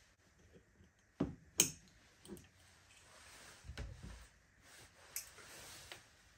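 Kitchen utensils and containers being handled on a worktop: two sharp knocks a little over a second in, a softer tap, a dull thud about four seconds in and a last click near the end, with faint rustling between.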